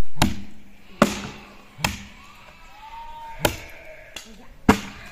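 Five sharp chopping blows, about a second apart with one longer gap, each a short crack.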